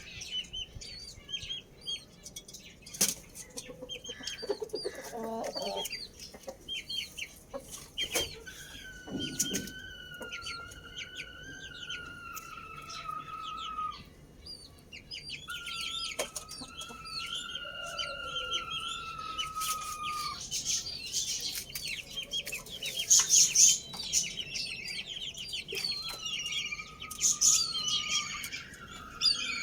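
Roosters crowing: three long, drawn-out crows, each held at an almost steady pitch for several seconds, over many small birds chirping throughout.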